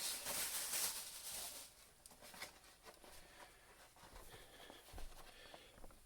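Rustling of an action figure's boxed packaging being handled, a scratchy noise lasting about the first second and a half, followed by a few faint taps and clicks.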